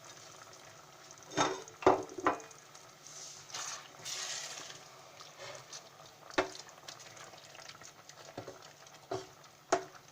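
Spoon stirring goulash in a cooking pot, knocking sharply against the pot about six times, over a soft sizzle of the sauce now that water has been added.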